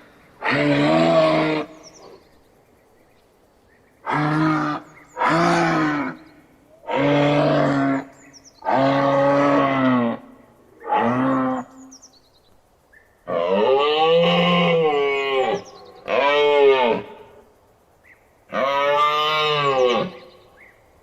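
Moose bellowing: a series of about nine drawn-out calls, each a second or two long with short pauses between, the later ones rising and falling in pitch. The recording is processed as 8D audio that moves around the listener.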